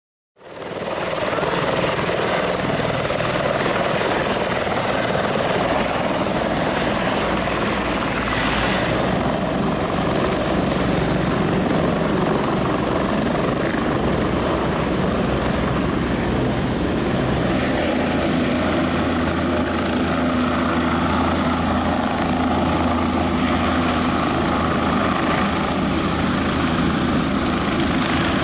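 Helicopter lifting off and flying away, its rotor and turbine engine running loud and steady. The sound fades in quickly at the very start.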